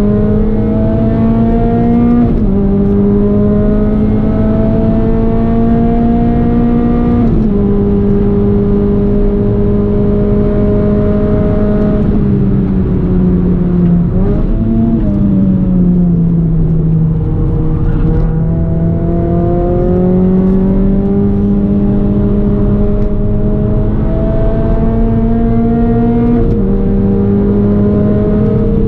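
Renault Clio 197's 2.0-litre four-cylinder engine under hard acceleration on track. Its pitch climbs and then drops sharply at two upshifts in the first several seconds. About halfway it falls away off the throttle, with a short rev blip on a downshift, then climbs steadily again to another upshift near the end.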